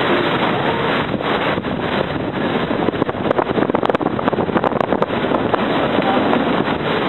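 Steady wind buffeting the microphone over the even rush of a boat under way on open water.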